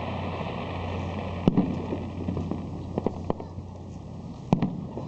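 Aerial fireworks shells bursting: four sharp bangs, the loudest about a second and a half in and again near the end, over a continuous rumble and crackle.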